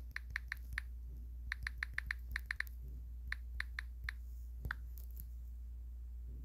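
Smartphone on-screen keyboard ticking as a search term is typed: faint quick runs of short ticks with pauses between them, ending with a single tick a little under five seconds in.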